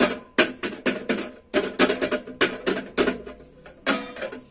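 Hands patting and tapping on the bottom of an upturned stainless steel vessel, a fast irregular run of sharp taps, loosening the set sesame sweet so it drops out onto the plate.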